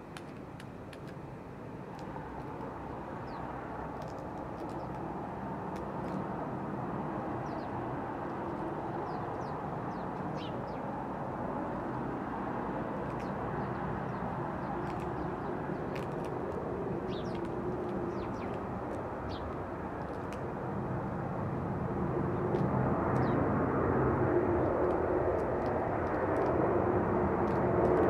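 Steady distant engine drone that slowly grows louder and swells over the last several seconds, with faint, brief high chirps of small birds over it.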